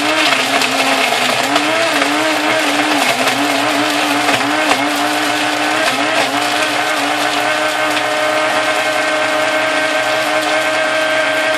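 Personal blender motor running while crushing ice in a yogurt-and-fruit shake. Its pitch wavers and dips unevenly as the ice loads the blades, then settles to a steady pitch for the last few seconds as the ice is broken down.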